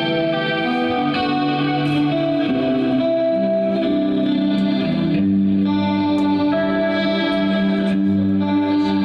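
Live instrumental music led by a guitar through effects, playing long held notes over sustained chords, without drums.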